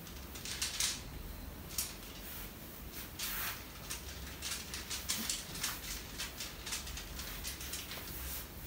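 Hands rubbing and scratching through hair and over skin during a head and neck massage: a string of short, irregular, scratchy rustles over a low steady hum.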